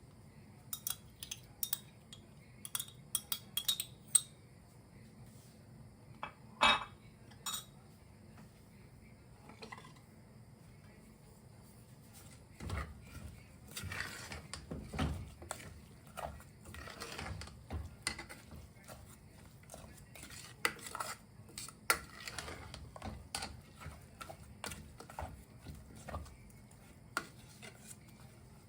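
A spoon clinking and scraping against a cooking pot as food is stirred. A few sharp clinks come first, then from about twelve seconds in, a long run of irregular scraping strokes.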